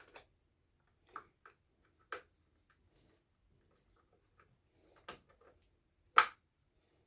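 Scattered clicks and knocks of a reciprocating saw being handled, about six in all, the loudest a sharp knock about six seconds in.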